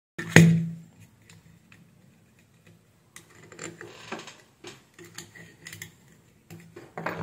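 A power supply circuit board handled on a work mat: one loud knock about half a second in, then small scattered clicks and taps as parts on the board are worked at, over a faint low hum.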